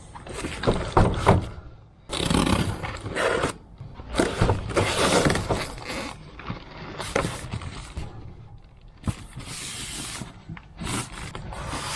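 Cardboard packaging being handled and opened: irregular scraping and rustling, with a few sharp knocks.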